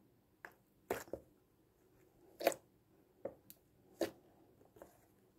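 Fingers pressing and kneading a stiff PVA-glue slime, giving about eight short, sharp clicks and pops spaced irregularly, with near silence between. The maker puts the stiffness down to the slime being overactivated.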